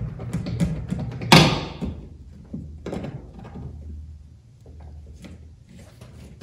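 A hand screwdriver tightens screws through a wooden rack base into plastic drywall anchors, making scattered knocks, clicks and creaks. The loudest knock comes about a second and a half in.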